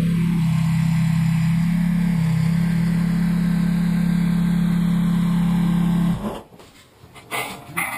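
Tractor engine running steadily at one constant speed, cutting off abruptly about six seconds in. A few light metal clanks follow.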